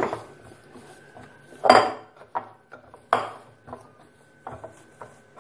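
Whole-wheat dough being kneaded by hand in a glass bowl: a few irregular knocks and clinks of the glass bowl as the dough is pushed and turned, the loudest about a second and a half in.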